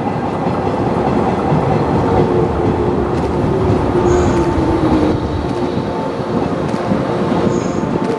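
JR Kyushu 415 series electric multiple unit running into a station platform and slowing, with a steady running noise. A low hum drops slightly in pitch, wheels clack over rail joints, and short high squeaks come about halfway through and near the end.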